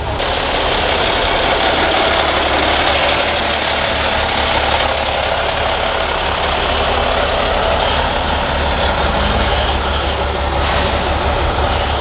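Semi-truck tractor's diesel engine idling steadily with a low, even rumble.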